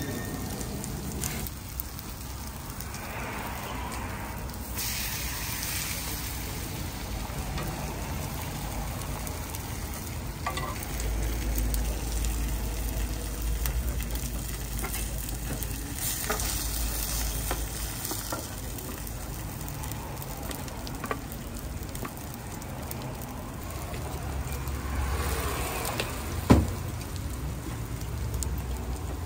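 Food sizzling as it fries on a hot cooking surface, a steady crackling hiss that swells now and then, with a sharp knock near the end.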